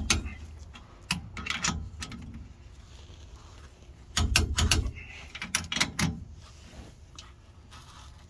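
3/8-inch drive torque wrench on the differential bearing cap bolts, set to 69 ft-lbs: sharp metallic clicks and knocks in short clusters, at the start, around a second in and again from about four to six seconds in, as each bolt is brought to torque and the wrench is repositioned.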